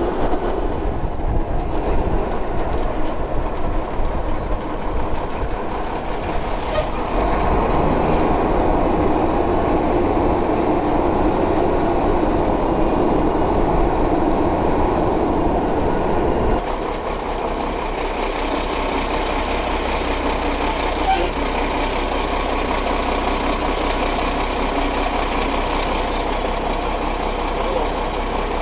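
Truck engine running under load with heavy rumbling and rattling, which drops suddenly about two-thirds of the way through to a lower, steady idle.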